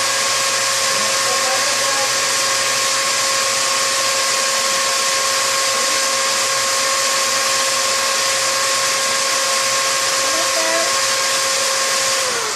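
Electric drill running at a steady speed with a steady whine as it bores into a thick toenail. Just before the end it is let off and the motor's pitch falls as it spins down.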